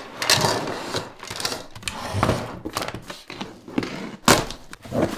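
A cardboard parcel wrapped in packing tape being handled and opened by hand: irregular rubbing and scraping noises, with a sharp knock a little after four seconds in.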